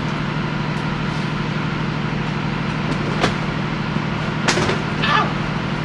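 Steady hum of a vehicle running, with a few short clicks and knocks: a sharp one about three seconds in and two more closer together near the end.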